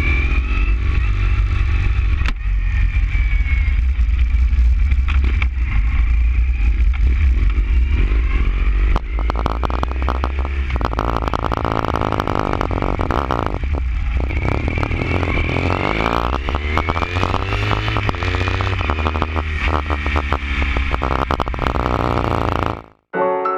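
BMW R1150's flat-twin boxer engine running through its newly fitted aftermarket exhaust, the revs rising and falling with a deep rumble throughout. The engine sound cuts off suddenly near the end.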